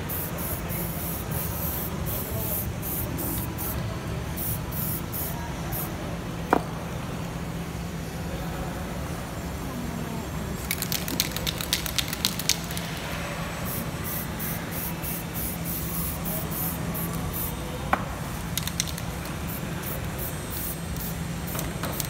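Aerosol spray-paint cans hissing as paint is sprayed, with the fast metallic rattle of the mixing balls as the cans are shaken, most plainly around the middle. A couple of sharp single taps stand out.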